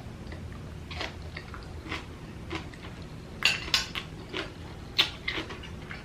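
Utensils clinking and scraping against kitchen dishes: a string of short, sharp clicks, sparse at first and louder and closer together in the second half.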